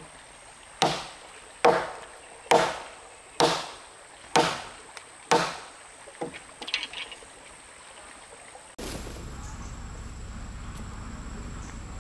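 Six heavy strikes on timber, evenly spaced a little under a second apart, as in chopping or hammering wood, followed by a few lighter knocks and clatter. About nine seconds in, a steady low noise comes in.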